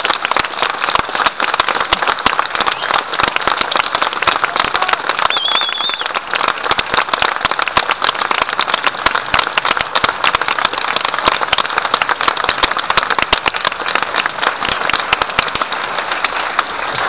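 Large audience applauding steadily, a dense clatter of many hands clapping that goes on without a break and dies away right at the end.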